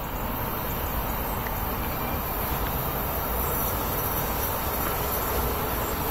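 Electric-hauled freight train approaching: a steady rumble of wheels on the rails, slowly growing, with a constant high hiss over it.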